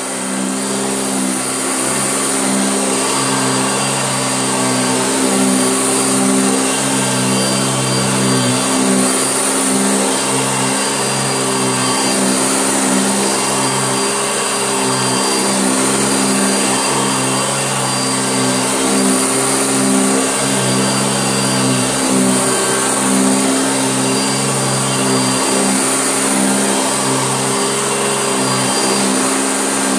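Hoover Junior bagged upright vacuum cleaner running steadily, its motor hum wavering slightly in pitch throughout.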